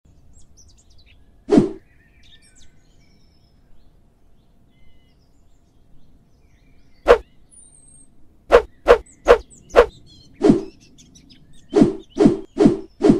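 Cartoon sound effects: faint birdsong ambience with a series of short, hollow knocks. There is a single knock about a second and a half in, another about seven seconds in, then quick runs of knocks, two or three a second.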